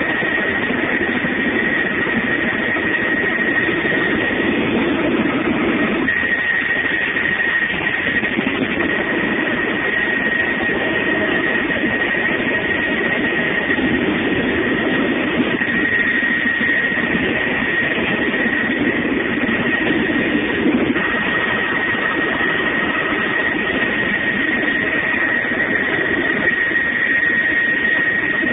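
Helicopter in steady flight, heard from inside the cabin: loud, even engine and rotor noise with a constant high whine.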